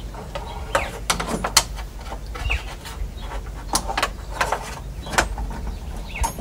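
Scattered sharp clicks and taps of a Holden Commodore VE door lock cylinder, with its key in it, being worked back into the outside door handle as it is angled to fit.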